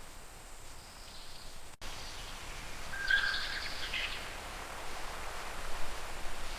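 Rainforest ambience: a steady hiss of background noise, with a short burst of bird chirps about three seconds in.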